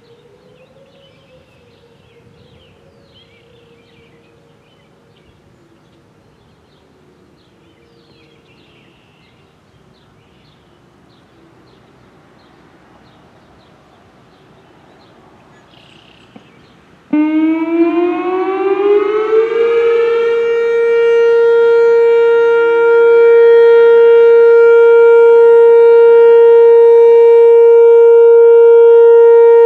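Whelen WPS-3016 electronic outdoor warning siren starting its alert signal: it cuts in suddenly about halfway through, its pitch rising over about three seconds, then it holds one loud steady tone. Before it starts, other sirens wail faintly and wavering in the distance, with high chirps.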